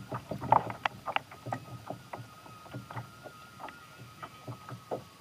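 Small irregular knocks, clicks and splashes of water against a kayak, busiest in the first second and sparser after.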